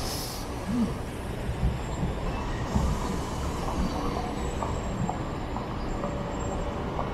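Low-floor tram running away along street track: a steady low rumble of wheels and motor with occasional knocks. A brief hiss comes at the very start, and a faint high wheel squeal is heard in the middle.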